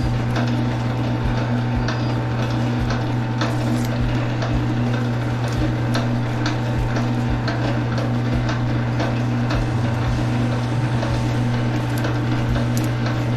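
Scattered light clicks and knocks as Romex cable is worked apart and handled at a wire stripper, over a steady low hum.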